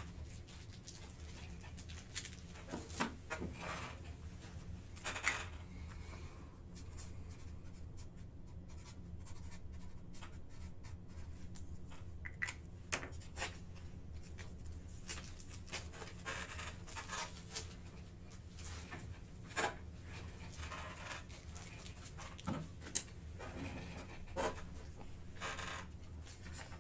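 Scattered light clicks and rustles of hands moving things on a table, over a steady low electrical hum.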